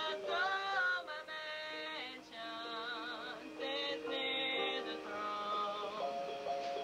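A woman singing a slow song in long held notes, some of them wavering, with an electric keyboard playing along underneath.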